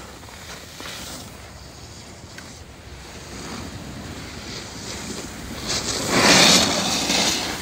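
Wind rushing over the microphone, then a snowboard's edge scraping and hissing across packed groomed snow as a rider carves close by, loudest about six seconds in.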